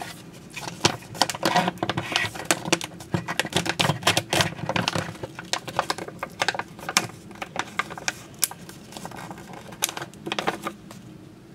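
Coffee packaging being handled: a dense, irregular run of crinkles, crackles and taps from bags and paper, thinning out near the end.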